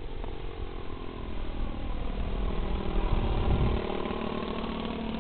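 Radio-controlled aerobatic model airplane's engine running in flight, its pitch sliding down and back up as it passes overhead, loudest about three seconds in.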